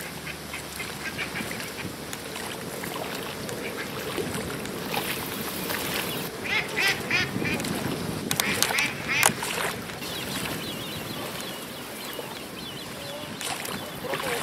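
Mallard ducks quacking over the steady background noise of the pond, with runs of quick quacks that are loudest about seven and nine seconds in.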